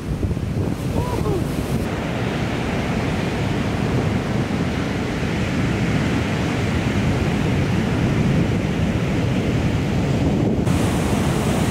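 Large ocean waves breaking and surf rushing, with wind noise on the microphone; the noise shifts abruptly about two seconds in and again near the end.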